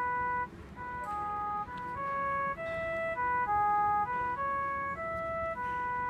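Masstel Fami S feature phone's built-in ringtone 5 playing through its small loudspeaker: a simple electronic melody of short, clear beeping notes that step up and down in pitch, with a brief break about half a second in.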